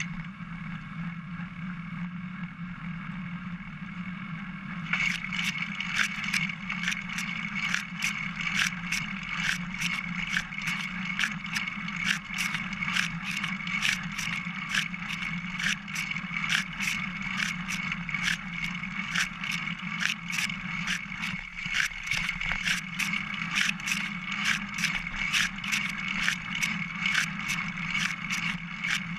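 Bicycle riding noise picked up by a GoPro mounted on the bike's top tube: a steady low hum. From about five seconds in, it is joined by regular clicking at about three clicks a second.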